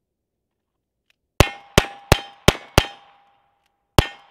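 Five quick single-action revolver shots about a third of a second apart, each hit ringing a steel target with a clear tone. After about a second's pause, a sixth shot and ring near the end start the string from the second revolver.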